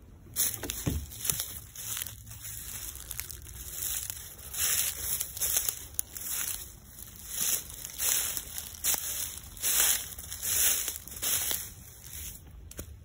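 Footsteps of rubber boots walking through dry grass and fallen leaves, the grass and leaves rustling with each step at a steady walking pace.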